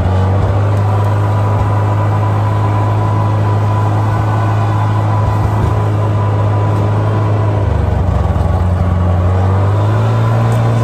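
Engine of a small tracked snow vehicle running steadily under way while pulling a loaded sled; its speed dips briefly about two-thirds of the way through, then picks up a little higher near the end.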